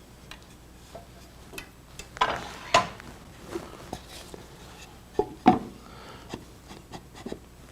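Hard maple turned parts knocking and rubbing together in a few short clacks while a piece is test-fitted for size. The fit is still too tight.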